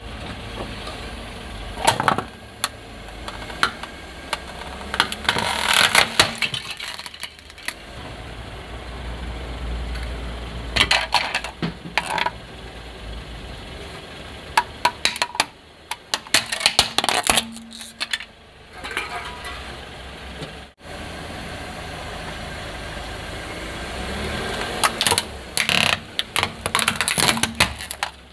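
Car tyre rolling slowly onto hard plastic toys and crushing them: clusters of sharp cracking and snapping plastic, repeated several times, over the steady running of the car's engine.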